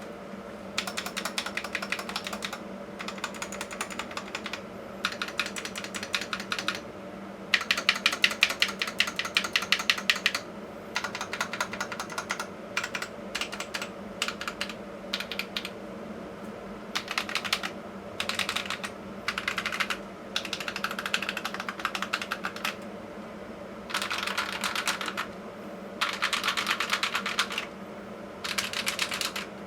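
Typing on a Tecware Veil 87 mechanical keyboard with Akko Cream Blue V3 switches: bursts of rapid keystrokes with short pauses between them, the busiest and loudest run about eight to ten seconds in. A faint steady hum lies underneath.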